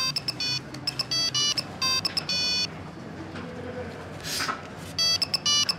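Mobile phone keypad beeping as keys are pressed: quick runs of short electronic beeps, one burst through the first couple of seconds and another about five seconds in.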